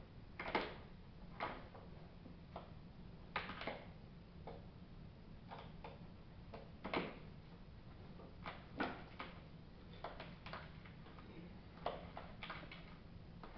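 Irregular sharp clicks and ticks, a few of them louder, from an Allen key and hex bolts being worked loose on the top of a carpeted subwoofer box.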